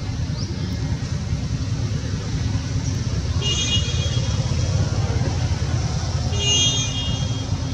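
Steady low outdoor rumble like distant traffic, with two short high-pitched tonal calls about three and a half and six and a half seconds in.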